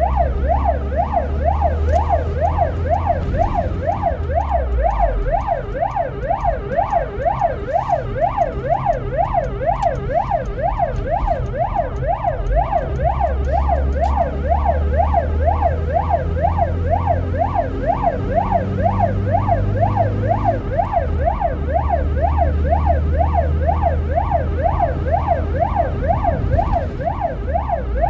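Ambulance siren wailing in fast up-and-down sweeps, about two a second, with no break, over the low rumble of the vehicle's engine, heard from inside the moving ambulance's cab.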